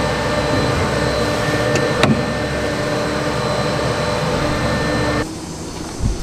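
Steady mechanical hum of the vehicle's engine running, heard from inside the cab, with one sharp click about two seconds in as the clutch pedal extension is handled. The hum cuts off just after five seconds, leaving a quieter background.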